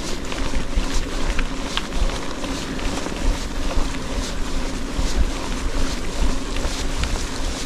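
Steady wind noise buffeting the microphone, with a low rumble and a few faint clicks.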